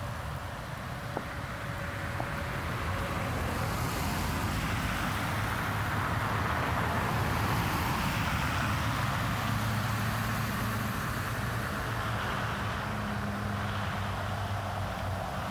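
Cars passing on a snow- and slush-covered road: steady tyre noise swells to a peak about halfway through, with a low engine drone in the second half.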